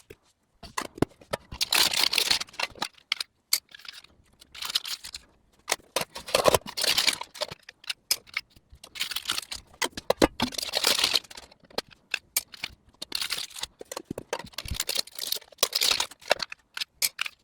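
Plastic shrink-wrap on small metal tins being slit with a knife and pulled off, sped up: repeated bursts of crinkling and tearing, about one every second or two, with many sharp clicks in between.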